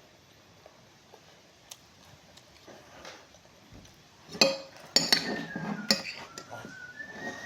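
Cutlery and dishes clinking: a few sharp clinks and knocks about halfway through, after a quiet stretch.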